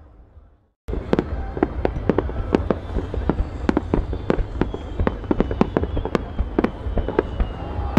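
Fireworks display: after a brief silence just under a second in, a rapid string of sharp bangs and cracks from fireworks shells going off, several a second.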